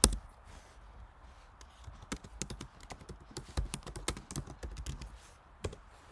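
Typing on a computer keyboard: quick, irregular key clicks, with one louder knock right at the start.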